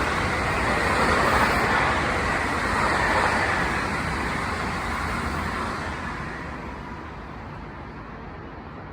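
Hanshin Railway electric train running past, its rolling noise loudest in the first three seconds and then fading steadily as it moves away.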